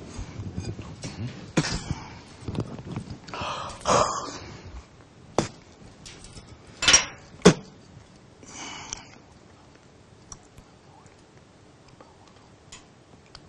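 Mouth sounds from a man speaking softly and blowing into a stone held at his lips: breathy hushed blows in the first few seconds, then three sharp clicks or smacks. Faint small taps follow as the stone is lowered toward the table.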